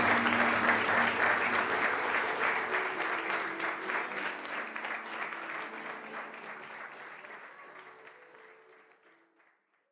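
A crowd of guests applauding, with music playing underneath; the clapping and music fade out together near the end.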